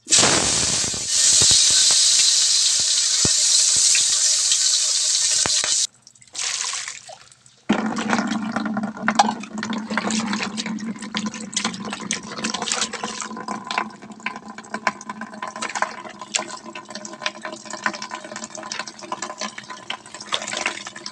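Loud steady sizzling in a hot wok for about the first six seconds. After a short break, water splashing and sloshing as hands rub and wash whole tulingan fish in a basin of water.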